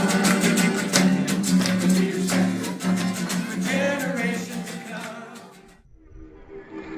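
Strummed acoustic guitar with a sung phrase, the song's last bars fading out about six seconds in. Different music with steady held notes begins just before the end.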